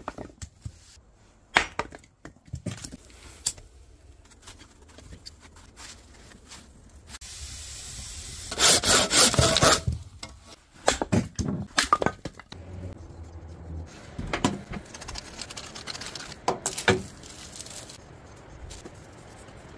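Firewood being chopped and split on a wooden chopping block: a series of sharp knocks and cracks, with a louder, denser run of strokes about nine seconds in.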